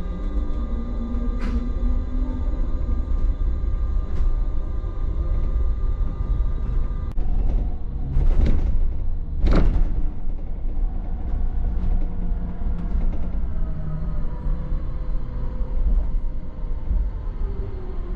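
Inside an Optare MetroDecker EV electric double-decker bus on the move: a steady low rumble of the body and tyres under a faint electric drive whine. Two short louder noises come about eight and nine and a half seconds in, and near the end the whine falls in pitch as the bus slows behind another bus.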